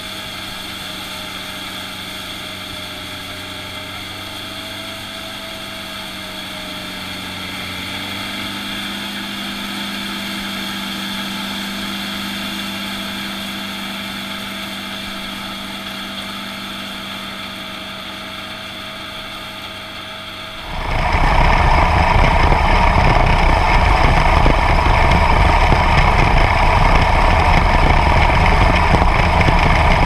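Small-plot combine's engine and threshing machinery running steadily while harvesting soybeans, first heard from some way behind the machine. About two-thirds of the way in, it becomes suddenly much louder, a dense rattling rumble heard from right on the machine.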